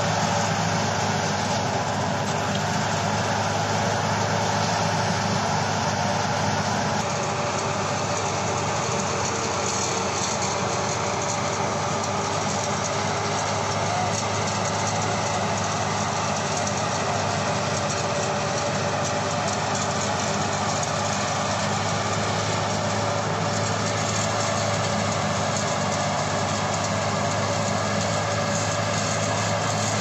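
Wheat threshing machine running steadily: a continuous mechanical drone with a constant low hum that holds level throughout.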